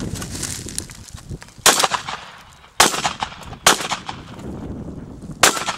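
Shotgun fired four times: three shots about a second apart, then a longer pause before the fourth.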